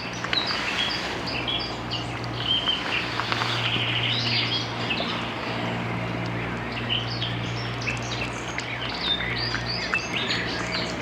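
Many small birds chirping and twittering in quick, overlapping calls, over a steady low hum.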